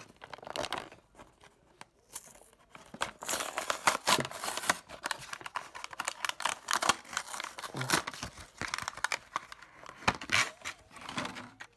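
Clear plastic blister pack of a diecast toy car being pried and torn off its cardboard backing card: a dense run of plastic crackling and crinkling with card tearing, sparse at first and busiest from about three seconds in.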